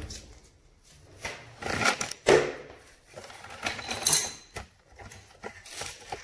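Irregular knocks, clicks and scrapes of a copper pipe being worked into its fittings by hand, with the pipe knocking against the wall.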